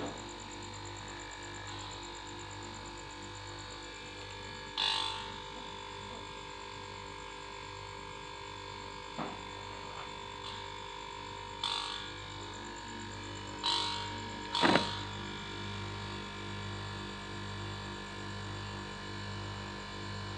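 A steady low hum, pulsing slightly, with a handful of short sharp knocks spread through it; the loudest knock comes about two-thirds of the way in.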